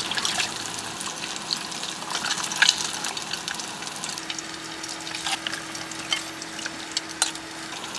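Small horse mackerel deep-frying in oil in a saucepan: a steady sizzle with scattered pops and crackles.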